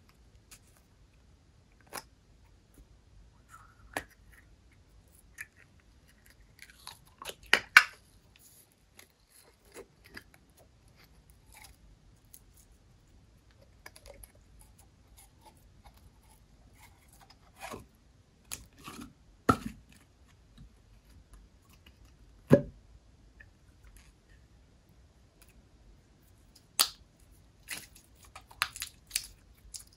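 Irregular clicks, taps and short sticky handling sounds of slime being mixed and plastic containers being handled, with a few louder sharp knocks, the loudest a cluster about seven seconds in.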